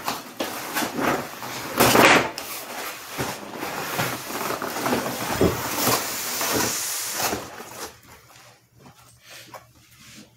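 A large flat-pack cardboard box being opened by hand: cardboard flaps pulled back and scraped, with loud rustling that is strongest at the start and about two seconds in, fading after about eight seconds.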